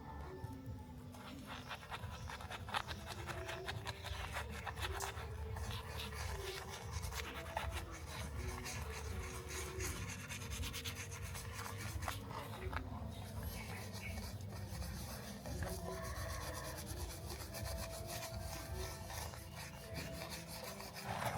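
Continuous abrasive rubbing and rasping on a toy car's part, as in hand sanding or scraping off rust and paint. It is made of many fine, rapid scratchy strokes.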